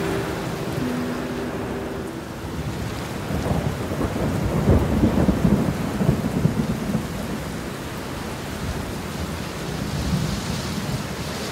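Steady heavy rain with a rumble of thunder that builds about three seconds in, is loudest around five seconds, and fades away. Soft held music notes die out in the first two seconds.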